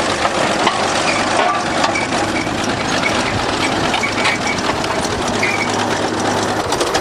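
An engine idling steadily with a fast, even clatter.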